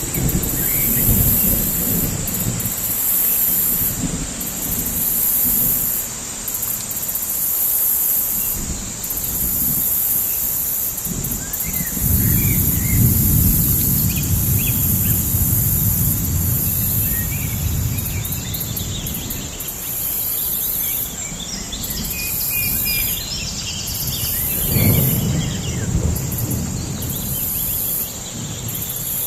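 Forest ambience: a low rolling rumble that swells strongly about midway and fades again, under a high insect buzz pulsing on and off, a steady high insect drone, and scattered bird chirps.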